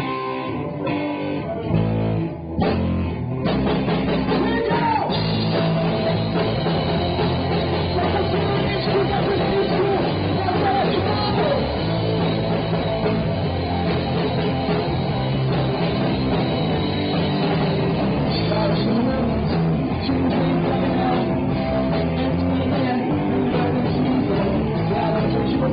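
Live rock band playing: electric guitars and drum kit with a singer. The opening is sparse and stop-start, and the full band comes in about three seconds in.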